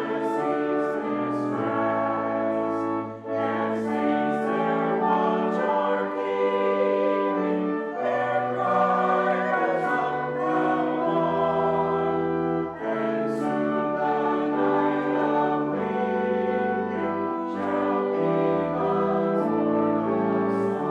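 A hymn sung by many voices together with organ accompaniment, in held chords that change every second or so over sustained bass notes.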